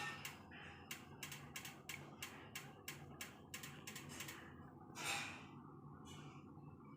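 Faint, evenly spaced clicks, about three a second, stopping after about four and a half seconds, then a short breath-like rush of noise about five seconds in.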